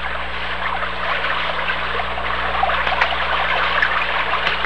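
Fast-flowing stream running over rocks: a steady rushing, splashing water sound.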